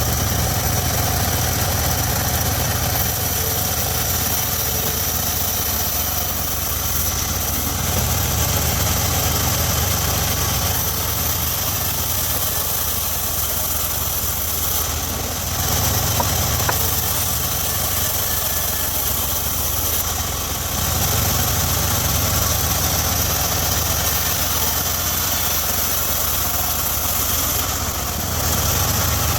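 Engine of a homemade circular sawmill running steadily, its level shifting slightly a few times.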